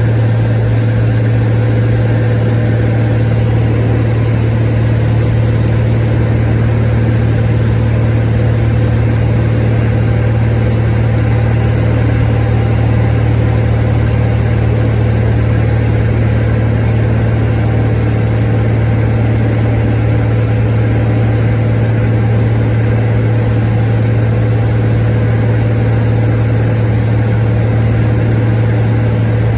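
Cabin drone of a 1958 Cessna 182 Skylane's six-cylinder engine and propeller in steady cruise flight. A strong, unchanging low hum runs under a constant rush of air and engine noise.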